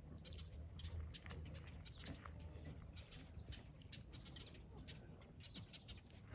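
Faint chirping of small birds: many short, high chirps, several a second, over a low background rumble.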